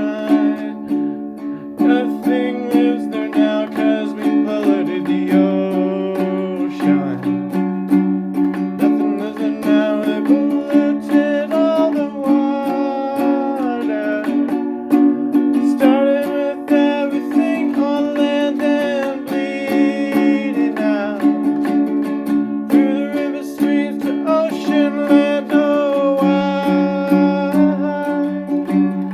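Acoustic song: a strummed plucked-string accompaniment with a wordless sung melody gliding over it.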